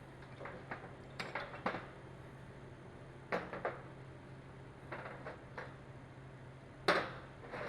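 Metal hand tools or parts clinking and knocking, in several separate clinks with the loudest near the end, over a steady low hum.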